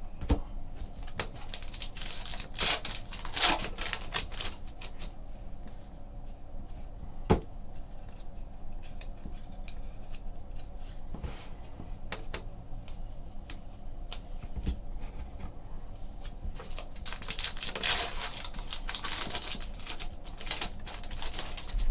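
Trading cards being handled: soft clicks and ticks as cards are slid and flipped through a pack, with brief bursts of louder rustling about three seconds in and again around seventeen to twenty seconds in.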